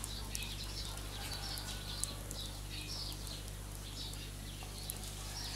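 Birds chirping over and over in short high calls, over a steady low hum, with a couple of faint clicks.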